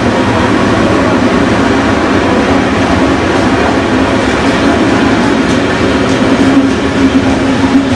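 Train running on the rails: steady, loud rolling noise with a low hum under it that holds throughout.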